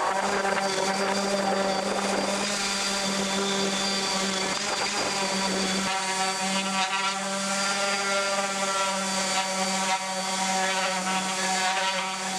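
Electric random orbit sander running steadily on weathered red oak chair slats: a constant motor hum and whir with the pad scrubbing the wood, its tone shifting slightly about six seconds in.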